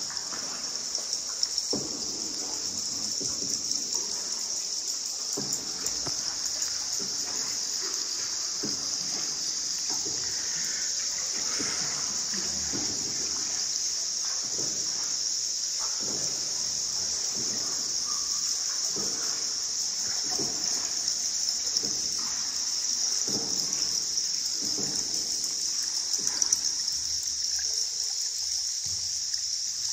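Boat paddle strokes splashing in river water at a steady pace, about one every second and a half, over a steady high-pitched hiss.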